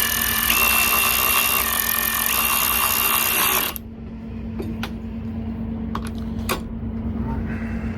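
Kobalt power ratchet wrench running in forward, its motor whine stepping up and down in pitch as the load changes, then stopping abruptly about four seconds in. A few sharp clicks follow.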